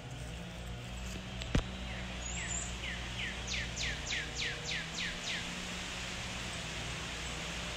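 A bird singing a run of about a dozen quick down-slurred notes, about three a second, each starting higher than the last, over a steady low rumble. A single sharp tap comes about one and a half seconds in.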